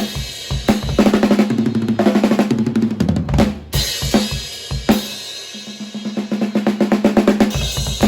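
A drum kit being played in fast, dense strokes, with rolls on the drums. It eases off about two thirds of the way through, then builds back up near the end.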